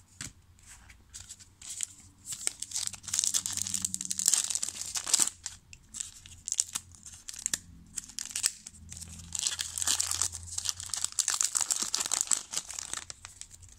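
A foil-lined Topps Big League baseball card pack being torn open and its wrapper crinkled by hand: a dense crackle of foil and plastic. It is loudest about three to five seconds in and again from about nine to twelve seconds.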